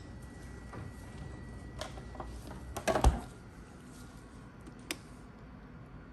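A few scattered light clicks and knocks, the loudest a quick double knock about three seconds in and a single sharp click near the five-second mark.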